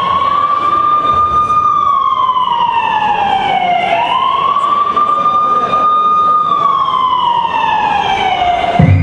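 Siren sound effect played over a sound system: two slow wails, each rising to a held high tone and then sliding down. A heavy bass beat cuts back in near the end.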